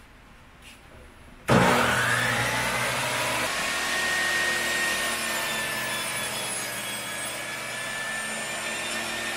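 Stanley benchtop table saw's universal motor switched on about a second and a half in, spinning up with a brief rising whine and then running steadily at speed with a high whine.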